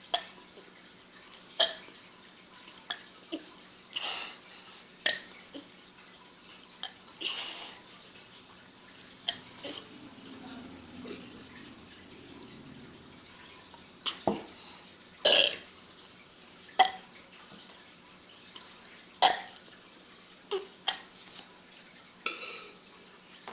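A girl burping over and over: an irregular string of short burps, some louder than others, with a pause of a few seconds in the middle.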